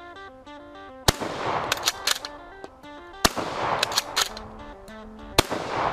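Three loud gunshots about two seconds apart, each with a long ringing tail, over background music, with clusters of smaller clacks between the shots.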